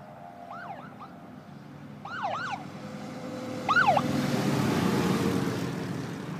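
Short siren whoops, each a quick rise and fall in pitch, repeated several times and loudest just before four seconds in. Then a pack of motorcycles passes at highway speed, their engines swelling about four seconds in and fading toward the end.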